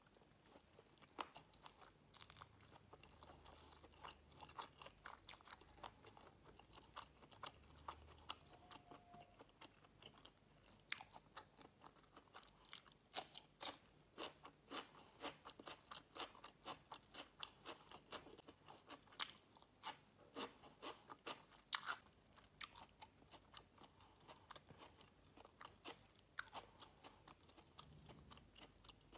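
Close-miked mouth chewing a crispy battered dumpling: quiet, irregular crunches and crackles, denser in the second half.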